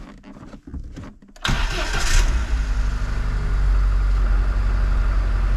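Lada Niva's four-cylinder petrol engine being started: quiet for the first second and a half, then the starter cranks and the engine catches at once and settles into a steady idle. It is the first run after fresh oil in the gearbox and transfer case, to let the transfer case settle.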